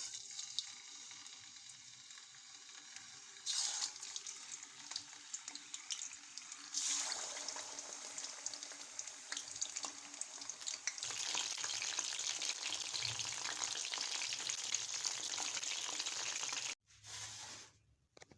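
Chicken frying in hot oil: a steady sizzle with dense crackling. It surges suddenly twice, about 3.5 and 7 seconds in, then cuts off abruptly near the end.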